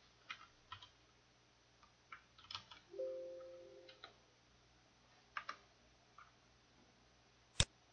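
Faint, scattered computer keyboard keystrokes with pauses between them, a brief low steady tone lasting about a second around the middle, and one sharper, louder click near the end.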